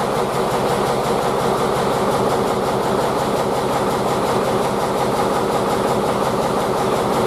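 Farm tractor's engine running steadily and loudly, working the hydraulic three-point lift that is bending a trailer frame straight.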